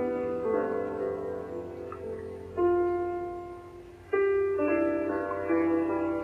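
Slow, relaxing instrumental sleep music of long held notes, with new chords sounding about two and a half and four seconds in.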